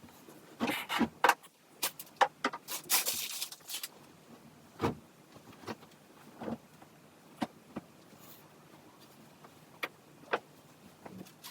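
Household handling sounds: scattered light clicks and knocks, with two short bursts of rustling about a second in and around three seconds in.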